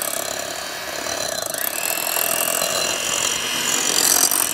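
Electric hand mixer running steadily, its beaters whipping cream cheese in a mixing bowl as chokecherry juice is beaten in.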